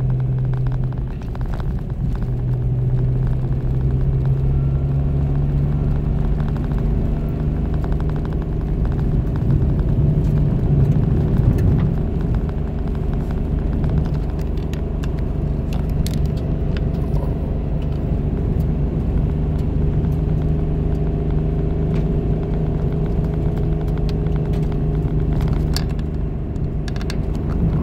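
Car engine and tyre noise heard from inside the cabin while driving: a steady low hum whose pitch dips briefly about a second in and shifts slightly around ten seconds in, with a few faint ticks.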